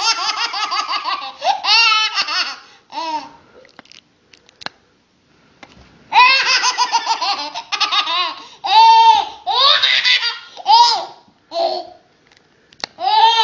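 A baby laughing hard in bouts of rapid, high-pitched belly laughs, breaking off for a couple of seconds in the middle.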